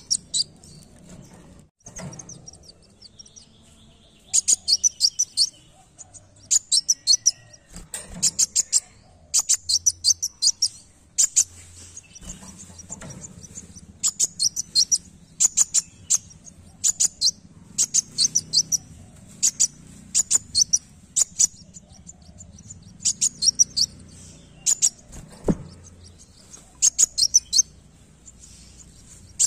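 Caged sunbird (kolibri wulung) singing: repeated short bursts of rapid, very high chirping notes, one burst every second or two, with brief pauses about two seconds in and near the end.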